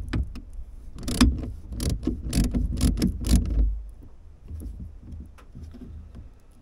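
Hand socket ratchet clicking in short, uneven strokes as a bolt is turned, over low rumbling handling noise. After about four seconds the clicking thins out and goes quieter.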